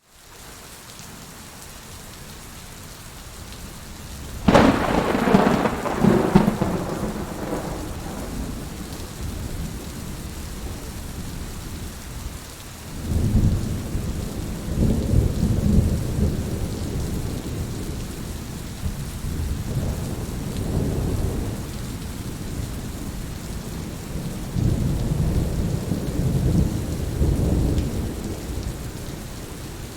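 Steady rain falling, with thunder: a sharp close clap about four seconds in that rolls away over a few seconds, then several long low rumbles later on.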